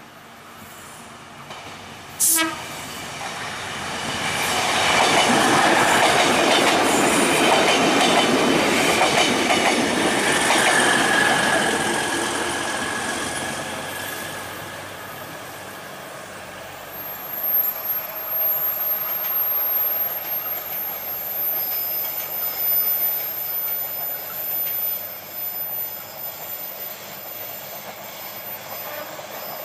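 A KAI Bandara YIA Ekspres diesel multiple unit passing on a curve: a sharp knock about two seconds in, then the train's running noise swells, loudest for several seconds with a brief wheel squeal, and fades as it moves away. Uneven clatter of wheels over rail joints follows.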